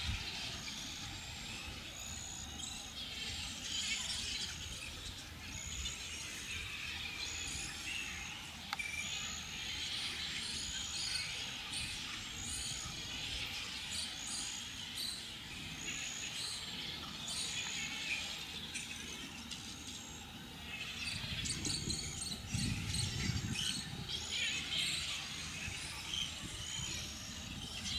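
Grey-headed flying-foxes calling in a roosting colony: a continuous chorus of high-pitched squeaks and chatter from many bats, with a low rumble for a few seconds near the end.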